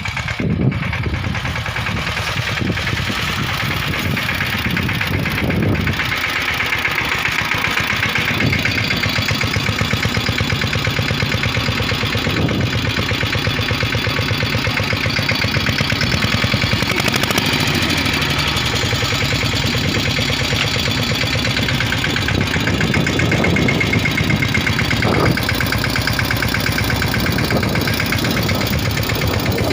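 Tractor's diesel engine running steadily with a fast, even beat.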